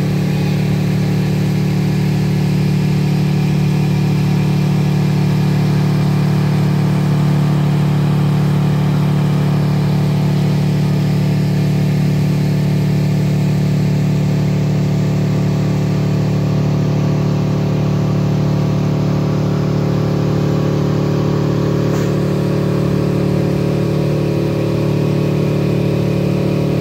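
Motorboat engine running steadily at speed, a constant drone that holds the same pitch throughout.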